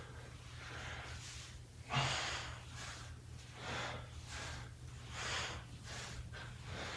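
A man breathing hard from the exertion of fast bodyweight squats: quick, rhythmic breaths in and out, with the loudest, a short voiced exhale, about two seconds in.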